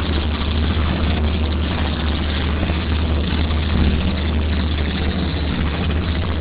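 Steady low engine rumble under a continuous rushing of wind and water.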